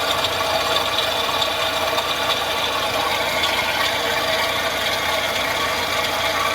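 Mitsubishi L300 engine running with a steady metallic grinding noise, very noisy, like metal being ground. The noise comes from a worn belt adjuster (tensioner) pulley bearing, at first taken for the alternator bearing.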